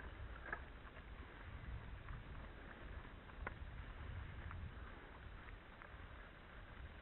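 Low, steady rumble of a mountain bike rolling over a rough dirt track, with wind buffeting the bike-mounted camera's microphone and a few faint high ticks.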